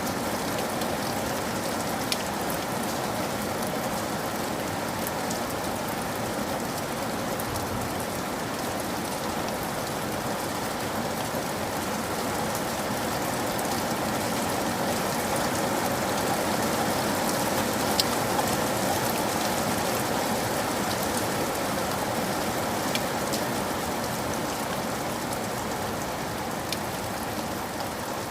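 Steady rain falling on a surface, with scattered sharper drop taps now and then.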